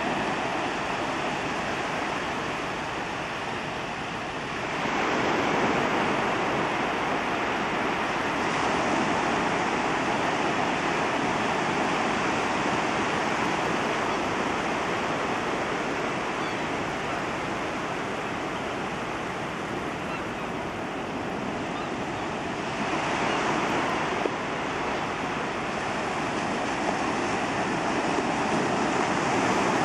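Small waves breaking and washing on a beach, a steady rush of surf that swells louder a few seconds in and again later on.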